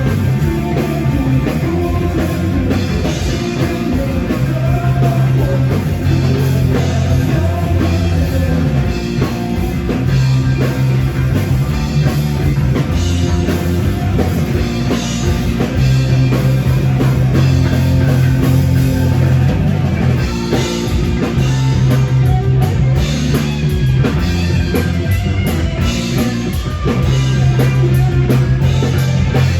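Rock band playing live, with drum kit and guitars, in a passage with no clearly sung words.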